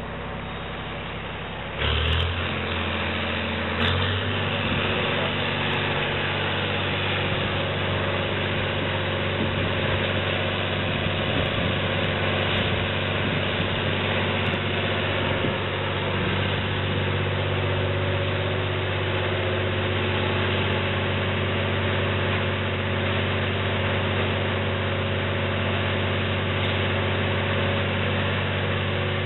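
Large diesel engine running. It steps up suddenly and much louder about two seconds in, again at about four seconds, and then runs steadily under load.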